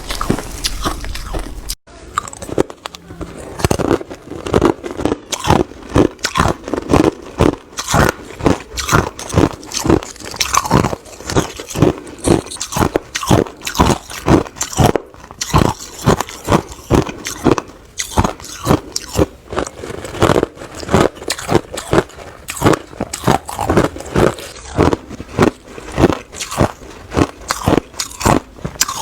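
Hard ice being bitten and chewed close to the microphone: loud, crisp crunches following one another two to three times a second, with a short break about two seconds in.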